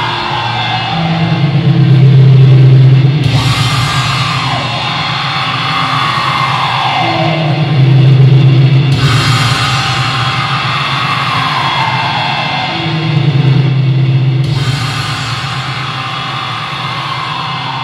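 Loud live heavy metal band playing drone-heavy music: a low distorted chord swells up about every six seconds, with a falling high tone sliding down over it each time.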